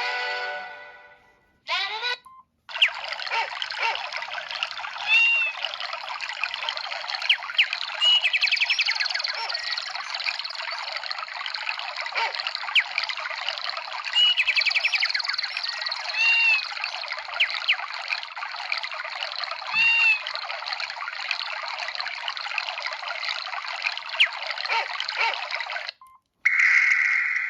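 Samsung SGH-D500 built-in ringtone made of a steady trickling, pouring water sound with short rising-and-falling chirps every few seconds; it starts about three seconds in, after a brief rising sweep, and stops a second before the end. The previous tune fades out at the start.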